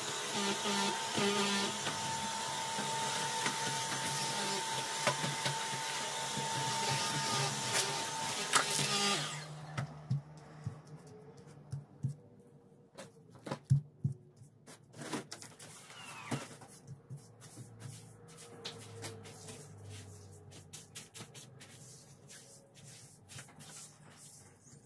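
Cordless stick vacuum cleaner running with a steady tone, switched off suddenly about nine seconds in. After it stops there are scattered knocks and clicks over a faint low hum.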